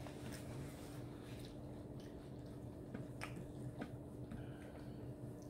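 Quiet eating sounds: soft chewing of pasta salad and a few light clicks of a fork against a plate, over a steady low hum.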